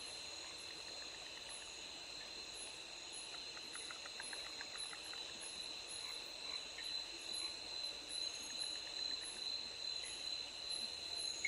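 Night insects, chiefly crickets, trilling steadily on one high note, with a higher chirp pulsing about twice a second. A short run of rapid clicks comes in about four seconds in.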